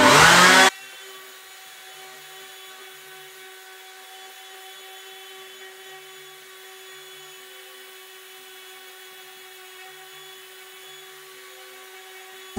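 Electric random orbital sander running steadily with a constant whine while sanding a wooden hickory hammer handle, after a brief loud burst of noise at the very start.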